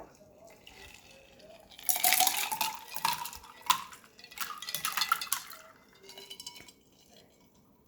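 Dishes and utensils clattering with splashing water, in two bursts of about a second each and a sharp clink between them.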